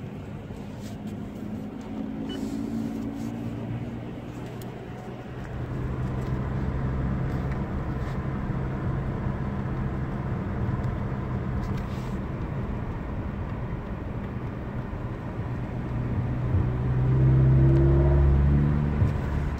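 Cabin noise of a 2016 Mazda 6 on the move: a steady low hum of engine and road noise, growing louder near the end.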